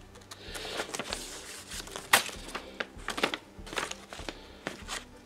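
Freshly sharpened kitchen knife slicing through a sheet of paper to test its edge: an uneven run of crackling rips and ticks, with the sharpest snap about two seconds in.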